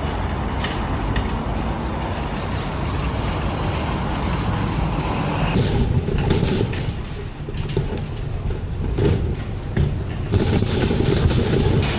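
Steady low vehicle and road noise from a car, with a few clicks and knocks after about halfway.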